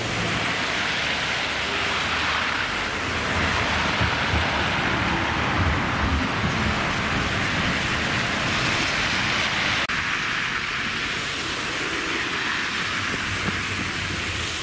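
A Munich tram passing close on snow-covered street tracks, a low rumble under the steady hiss of traffic on slushy roads. About ten seconds in the sound cuts abruptly to a slightly quieter, steady street-traffic hiss.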